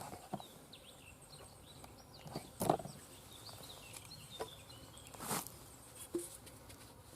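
Small birds chirping faintly, broken by a handful of short rustles and knocks, the loudest about a third and three quarters of the way through.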